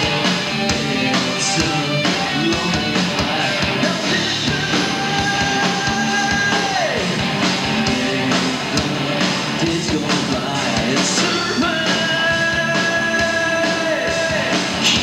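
Live rock band playing: singing over electric guitars and drums, loud and steady. Two long held notes, one starting about four seconds in and one about twelve seconds in, each slide down at the end.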